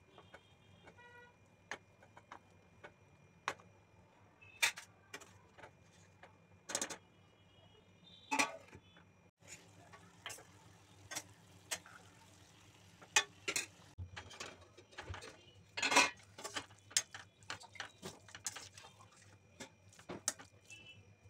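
A steel spoon stirring and scraping a thick vegetable mix in a stainless steel kadai, with irregular clinks and knocks of metal on the pan, some of them ringing briefly.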